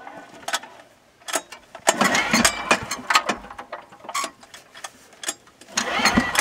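Cold diesel generator engine cranked over by hand with its pull-starter, twice: a rough churning pull about two seconds in and another near the end, with clicks of the starter in between. The engine turns over without starting, hand-cranked because the battery is flat.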